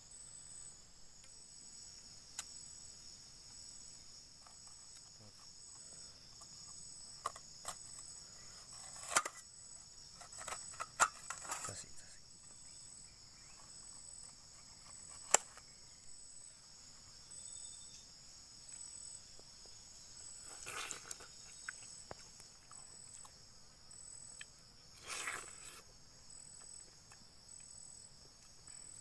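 Insects calling in a steady, high-pitched chorus. A few sharp clicks and knocks cut through it, the loudest about fifteen seconds in, and two short rustling bursts come later.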